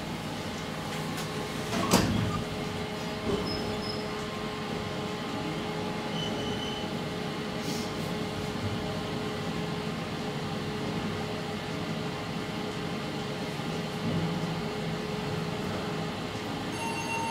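Traction elevator car, a new SMW installation, in operation: its glass doors close with a knock about two seconds in, then the car travels with a steady hum and a faint even whine from the drive.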